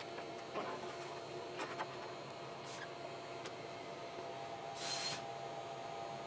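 Low-level workshop background: a faint steady hum with a few soft clicks, and a brief hiss about five seconds in.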